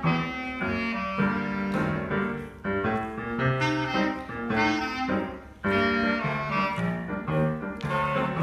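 Clarinet playing a melody note after note, over a piano accompaniment.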